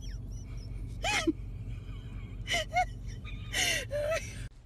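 A pug whining in short high calls while waiting for food, about five of them, the first about a second in and sliding down in pitch.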